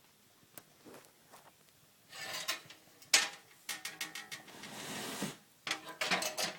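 Scattered clicks and knocks with bursts of rustling, as of things being handled and moved about. One sharp, loud click comes just after three seconds in.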